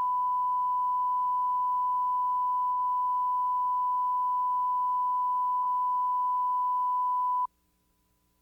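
Steady electronic test tone at one unchanging pitch, cutting off abruptly about seven and a half seconds in. This is the line-up tone that heads a video tape.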